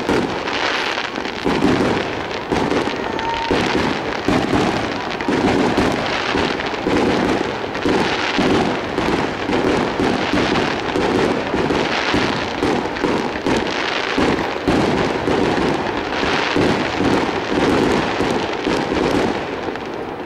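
Aerial fireworks shells bursting in quick succession, a dense barrage of booms that runs on without a break and tails off near the end.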